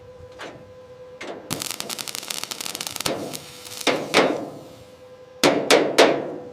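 Metal tools knocking and clanging on metal parts of the car: a few separate sharp hammer-like strikes, a quick run of rapid clicks in the middle, and three loud strikes close together near the end.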